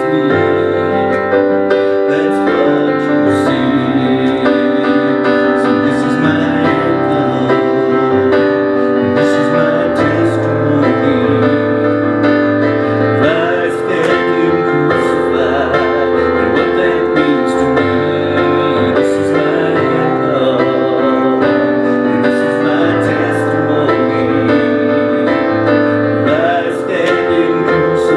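Worship song music: sustained piano and keyboard chords, with a singing voice holding wavering notes in places but no clear words.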